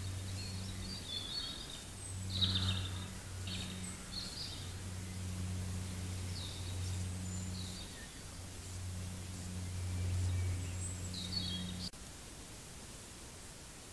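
Small birds chirping and calling in woodland, picked up by a trail camera's built-in microphone over a low hum that comes and goes. Just before the end the sound cuts to a faint steady hiss.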